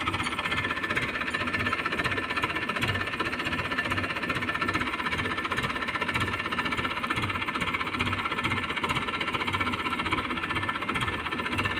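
Diesel engine idling steadily, with an even low knocking pulse.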